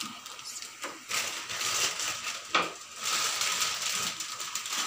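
Plastic sheet crinkling as a flattened urad dal vada is lifted and peeled off a puri press, with one sharp knock about two and a half seconds in.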